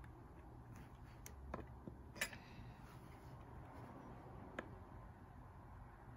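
Near silence with a few faint, separate clicks from a fingertip pressing the buttons of an Ozeri digital kitchen scale. The second click is the loudest.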